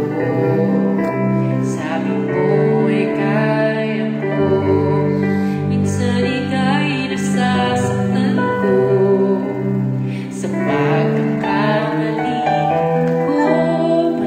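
A slow, tender song playing, with sustained chords and a voice singing long, held notes.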